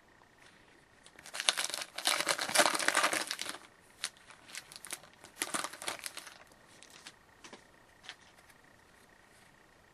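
Trading-card pack wrapper crinkling and tearing open for about two seconds, then a few shorter crinkles and light clicks as the pack and cards are handled.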